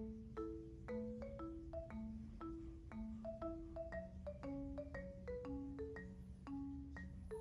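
Background music: a light mallet-percussion tune, marimba-like, with a melody of short struck notes over a slower bass line.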